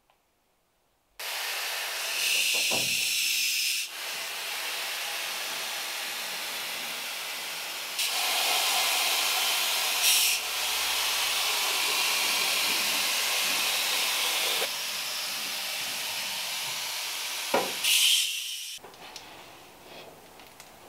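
Steady hiss of air-powered spraying. It starts about a second in, steps up and down in level a few times in long stretches, and stops shortly before the end.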